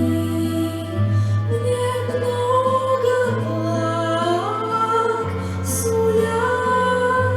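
Music: a melody of long held notes that glides up to higher notes about halfway through, over low bass notes that change every second or two.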